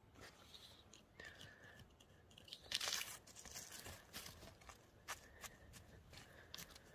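Dry leaf litter and twigs rustling and crackling under a hand on the forest floor, in faint short crackles with a louder rustle about three seconds in.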